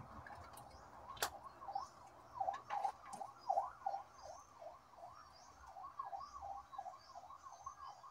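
An electronic siren in a yelp pattern, its pitch rapidly sweeping up and down over and over. A couple of sharp plastic clicks sound in the first few seconds.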